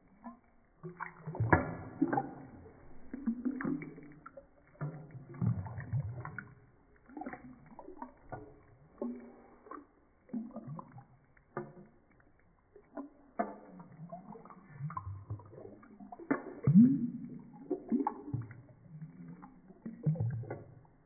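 Shallow water sloshing and splashing in a ceramic bathroom sink as it is stirred with a stick, in irregular bursts with a few sharp knocks.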